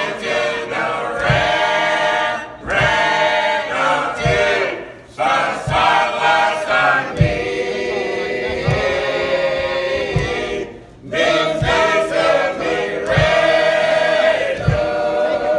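Church choir of men and women singing a gospel song in phrases, with a low thud about every second and a half keeping time.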